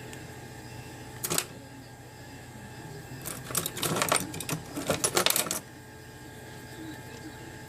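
Small hard clicks and rattles of phone parts and tools being handled during a smartphone screen repair: one brief clatter about a second in, then a dense run of clicks from about three to five and a half seconds in.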